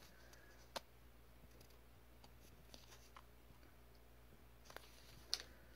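Near silence with faint handling noise from small paper sticker cards being held and shuffled by hand. There is a sharp click about a second in and another near the end.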